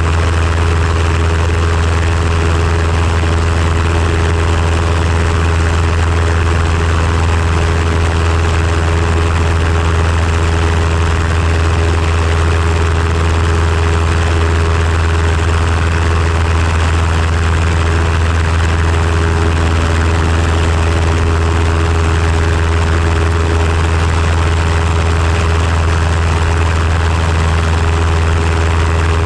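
RLU-1 Breezy homebuilt airplane in cruise flight: its engine and propeller drone steadily at constant power, mixed with wind rushing over the camera out in the open airstream.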